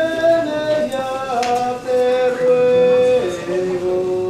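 Slow singing in long held notes, the tune stepping from one pitch to the next.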